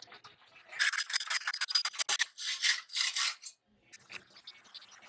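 Metal rasping on square steel tubing clamped in a vise, in quick scraping strokes that start about a second in and stop after about three and a half seconds.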